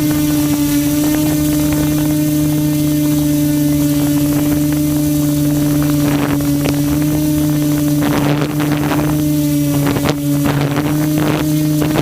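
Quadcopter's electric motors and propellers running with a steady, unchanging hum, heard from the camera mounted on the craft. Gusts of wind buffet the microphone in the second half.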